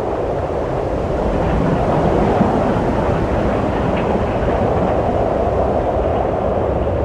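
Wind blowing steadily, a low rushing noise that swells slightly about two seconds in.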